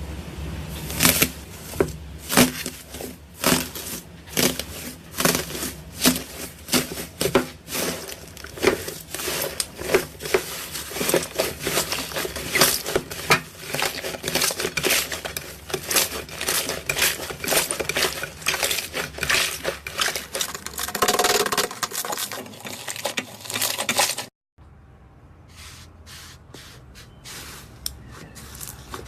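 Slime being squeezed and worked by hand, giving a dense run of crackling, popping clicks. It cuts off abruptly near the end, and fainter clicking starts again.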